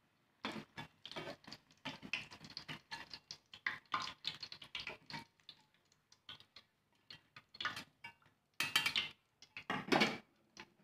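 Perforated metal skimmer scraping and clinking against a wok while fried tempeh patties are scooped out of the oil. The clatter is irregular, busiest in the first half, then sparse, with two short louder bursts near the end.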